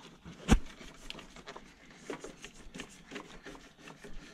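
A sharp click about half a second in, then faint scattered clicks and rustling from old wiring and plastic parts being handled and pulled out.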